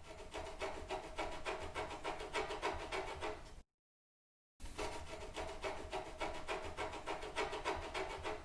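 Scratching in quick, repeated strokes, several a second, in two runs of about three and a half seconds each with a second of dead silence between them.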